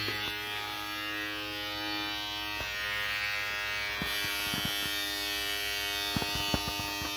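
Battery-powered back shaver, running on two AA batteries, buzzing steadily with its motor switched on. A few faint clicks come through in the second half.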